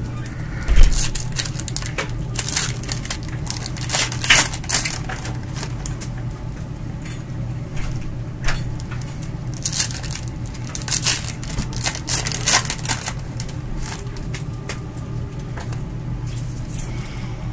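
Foil wrappers of baseball card packs crinkling and tearing as gloved hands open them, in an irregular string of crackles, with a thump about a second in. A steady low hum runs underneath.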